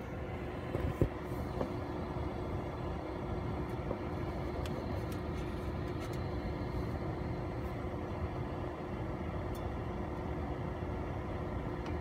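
Rinnai gas fan heater running: the steady rush of air from its blower fan with a steady hum under it. A few light ticks sound near the start.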